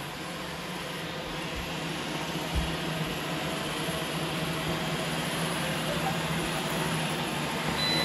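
Several robot vacuums, Roombas among them, running at once: a steady whirring hum of motors and brushes with faint steady whines, growing slightly louder, with one soft low thump about two and a half seconds in.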